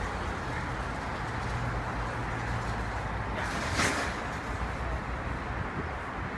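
Steady city street traffic noise with a low hum, and a brief louder rush about halfway through.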